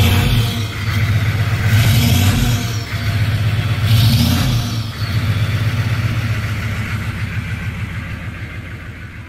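6.5L Detroit Diesel V8 of a 1994 Chevrolet K2500 Suburban running through a SuperFlow 4-inch exhaust with a deep sound, revved twice about two and four seconds in, then settling back to a steady idle that fades toward the end.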